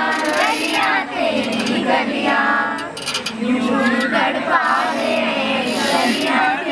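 A group of young women singing together.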